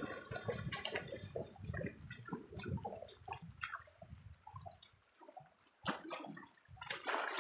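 Feet wading and splashing through a shallow stream, and a small hand net scooping through the water, sloshing and gurgling irregularly. The water goes quieter for a moment about two-thirds of the way through, then picks up again after a sharp splash.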